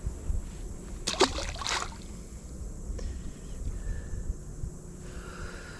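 Legs wading through creek water: sloshing and splashing, loudest between one and two seconds in, over a steady low rumble.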